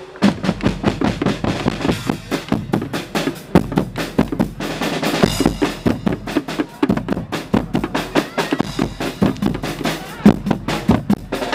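Guggenmusik drum section playing a fast, driving beat: big marching bass drums struck with mallets, with snare and cymbals from a drum kit.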